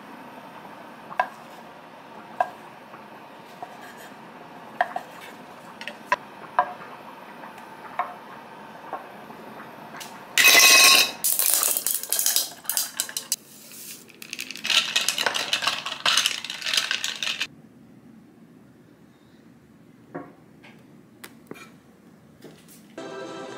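Slicing a rolled omelette on a wooden cutting board, a sharp knock on the board with each cut, about one a second. Then water poured from a plastic bottle into a glass of ice, starting loud and running in two stretches of a few seconds, followed by a few light clinks of dishes.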